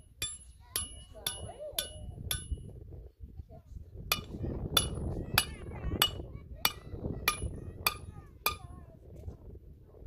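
Hammer blows ringing on metal, nearly two a second, in two runs with a short pause between them.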